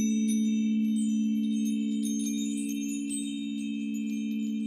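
Crystal singing bowls hold a steady low hum of a few blended tones, while a set of hanging metal chimes, struck with a stick, rings out over it in many bright, high tinkling notes that keep being renewed.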